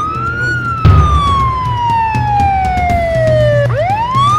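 Police car siren on a wail: the pitch rises quickly, then falls slowly for about three seconds, and starts over near the end, over the low sound of the vehicle's engine. A sharp thump comes about a second in.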